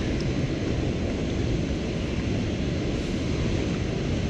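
Steady wind noise rumbling over the microphone, with no distinct events.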